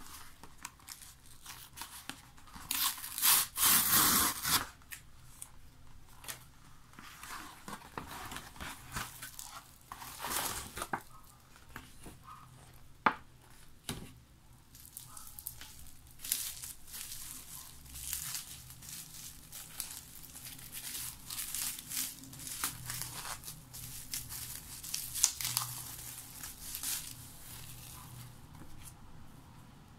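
A paper courier mailer torn open with a loud rip about three seconds in, followed by repeated crinkling and rustling of plastic bubble wrap as books are unwrapped. A single sharp tap comes about halfway through.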